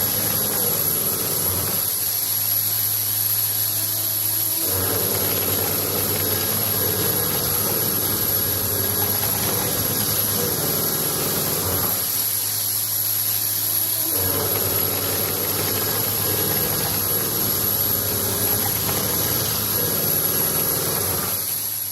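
Machine running with a constant high whine and a steady hum under a dense rushing noise. The rushing noise drops away twice, for about two seconds each time: about two seconds in and again about twelve seconds in.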